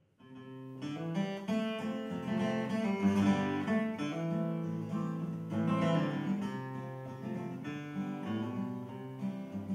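Solo steel-string acoustic guitar playing the instrumental introduction of a country ballad, a run of plucked and strummed notes over a bass line, fading in at the start.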